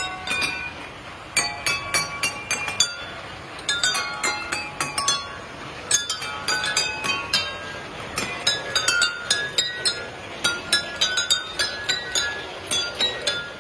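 Drinking glasses holding water, struck one after another by a striker arm on a moving model train locomotive, ringing out a melody of clear pitched clinks, several notes a second.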